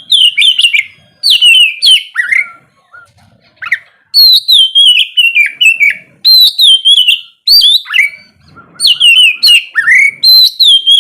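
Oriental magpie-robin (kacer) singing loud, varied whistled phrases. Most phrases slide down in pitch, mixed with quick rising notes, and come one after another with short pauses between them.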